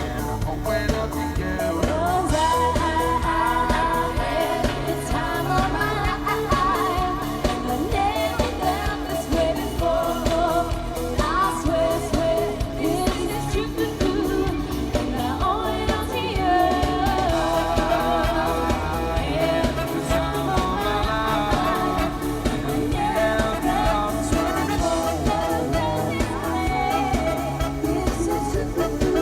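Band music with singing.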